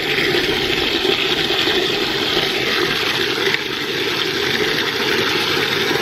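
Water jetting under pressure from a plastic float valve into a half-full bucket, a steady rushing and splashing. It cuts off at the very end as the rising float shuts the valve.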